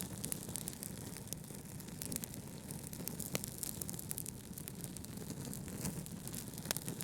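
Wood fire crackling: frequent sharp pops and snaps over a steady low rumble.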